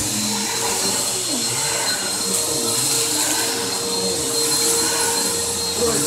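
Upright vacuum cleaner running steadily, a constant motor whine over rushing air.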